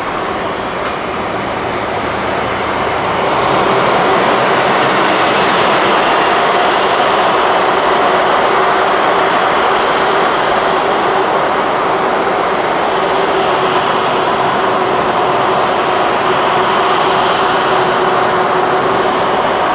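Airbus A330-200's Rolls-Royce Trent 700 turbofan engines running at low power during pushback: a steady jet noise with a held tone that grows louder about three seconds in and then stays even.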